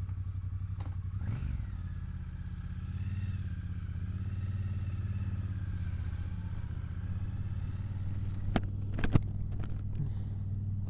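Triumph Bonneville's parallel-twin engine running steadily, with two sharp clicks a bit past halfway.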